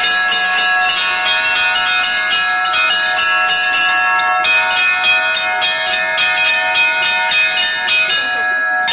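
Russian Orthodox church bells rung by hand in a fast, irregular peal. The small bells are struck about three or four times a second over the long ringing tones of the larger bells.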